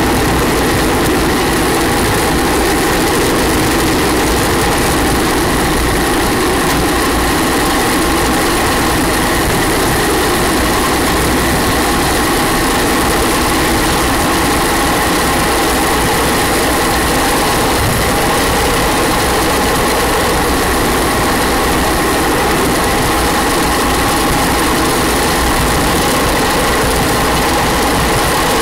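Steady rush of wind and tyre rumble from an engineless gravity racer rolling fast down asphalt, with a steady high whine running through it.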